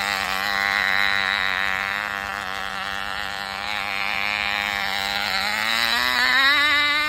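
The Cox Command Jeep's tiny two-stroke glow engine running at high speed with a steady, slightly wavering buzz. Its pitch climbs over the last second and a half as the engine speeds up.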